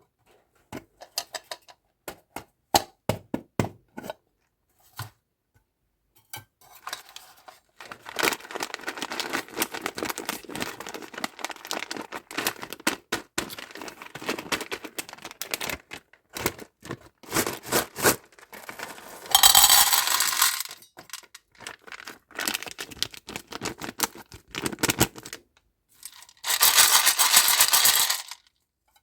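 Sweets and their packaging being handled and opened. Small hard clicks and taps come first, then a long spell of crinkling wrapper. Two louder bursts of tearing or rustling packaging follow, about two thirds of the way through and near the end.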